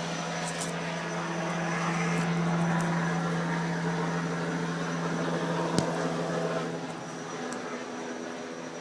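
Aircraft passing overhead: a steady engine drone that swells to its loudest about two to three seconds in and fades away toward the end, with one sharp click near the middle.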